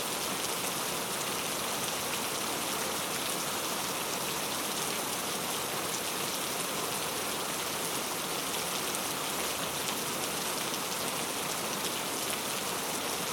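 Heavy rain falling steadily, a dense even hiss of many drops hitting a surface.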